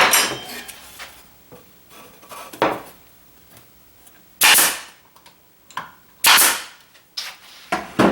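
Nail gun firing nails into a wooden drawer divider board: two loud shots about two seconds apart midway through, with lighter knocks of the board and tool around them.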